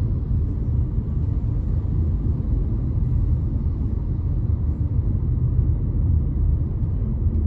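Steady low rumble of a car driving along a city road, heard from inside the cabin with the windows open: engine, tyre and wind noise.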